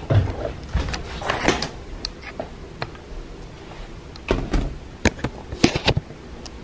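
Camera handling noise: scattered knocks and clicks as the camera is picked up and turned, a few near the start and a tight run of them between about four and six seconds in.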